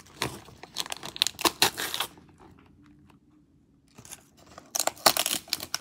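Christmas wrapping paper being torn and crinkled by hand: a quick run of rips and crackles, a pause of about two seconds, then more tearing near the end.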